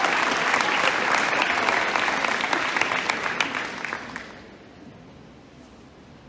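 Audience applause, a crowd of many hands clapping, dying away about four seconds in.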